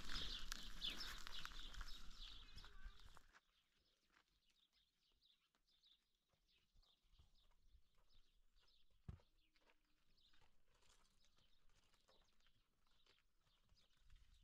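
Birds chirping over a low wind rumble for about three seconds, cut off suddenly. Then near silence with faint scattered clicks of a donkey's hooves and footsteps on a dirt path, and one sharper knock about nine seconds in.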